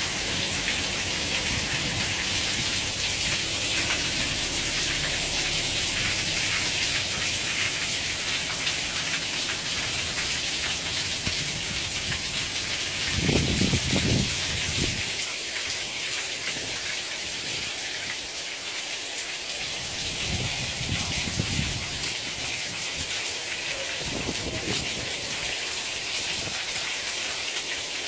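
Torrential cloudburst rain hissing steadily. A low rumble comes about halfway through, the loudest moment, and fainter ones follow later.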